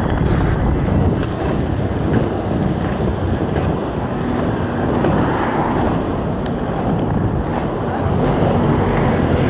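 Wind buffeting a body-worn GoPro action camera's microphone: a loud, steady rumbling noise.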